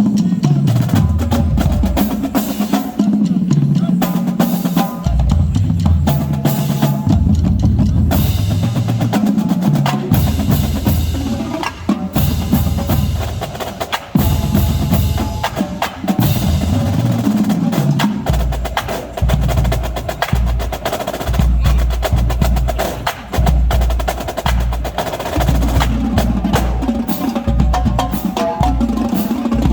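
Marching drumline playing a fast, loud drum cadence: crisp snare-drum strokes and rolls over pounding bass drums.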